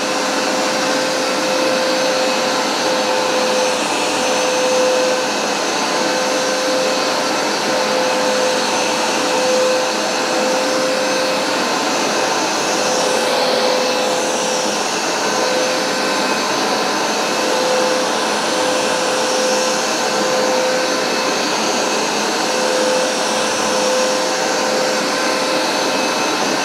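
Hoover SmartWash Pet automatic carpet cleaner running steadily during a cleaning pass: an even suction rush with a steady motor whine.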